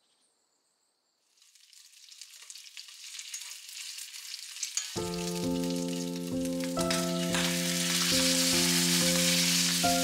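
Bacon pieces sizzling as they fry in a black iron pan, fading in after about a second of silence and growing louder, with chopsticks stirring. Background music with sustained notes comes in about halfway.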